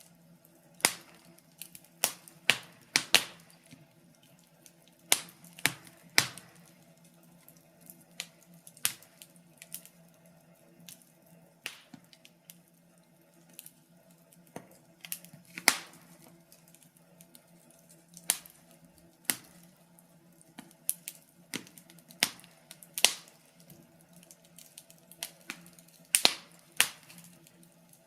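Wood fire crackling, with irregular sharp pops and snaps, some much louder than others, over a faint steady low hum.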